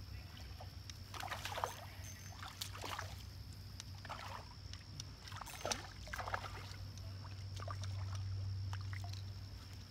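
A small carp splashing at the water's surface as it is reeled in on a spinning rod: about half a dozen short, irregular splashes. A steady high insect drone runs underneath.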